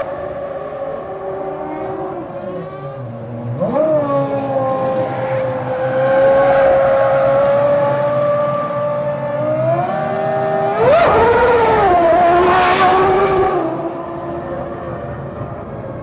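Formula One cars' 3.0-litre V10 engines at racing speed. The pitch drops about three seconds in and climbs sharply again, then rises once more near eleven seconds, where the sound is loudest for about three seconds before easing.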